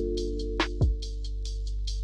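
Music with a drum beat: a held chord over a steady bass, with quick ticking beats and two drum hits.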